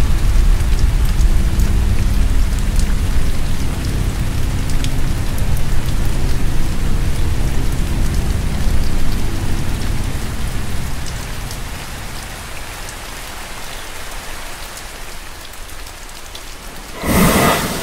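Steady heavy rain, with a low rumble underneath for the first half or so that gradually dies away. A sudden loud crash cuts in about a second before the end.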